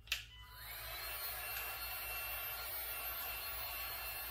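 Cordless heat gun clicked on, its fan spinning up over the first second into a steady blowing hiss, as it heats a freshly glued patch on a poly tank to drive the adhesive's curing reaction.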